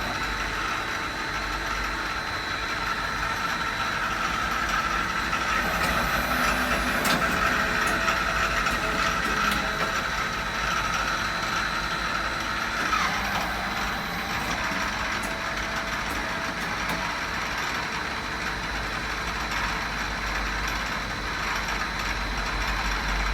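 Citizen Cincom G32 CNC lathe running, a steady mechanical hum with a high whine that drops in pitch about 13 seconds in, and a few sharp clicks.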